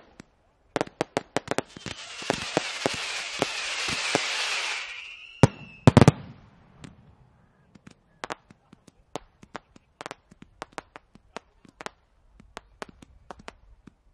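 Fireworks display going off: quick sharp bangs, then a few seconds of dense crackling, ended by two heavy booms about six seconds in, then scattered sharper reports.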